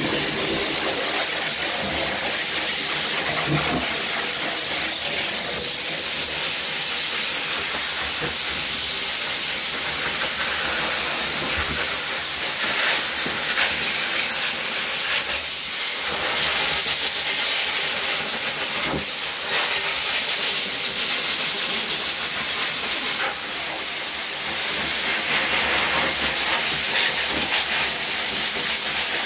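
Hose-type high-velocity pet dryer blowing a loud, steady rush of air through its nozzle over a damp dog coat, during the first blow-dry after a bath.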